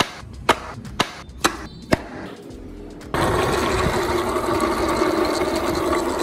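Four sharp clicks about half a second apart. Then, about three seconds in, a small electric motor abruptly starts a steady whir, with tyres rolling on concrete, as the wooden BMW X6 model drives.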